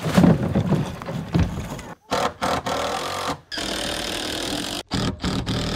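Cordless impact driver driving screws into the plywood deck edge of a raft, in several runs of about a second each from about two seconds in, each stopping abruptly with short pauses between.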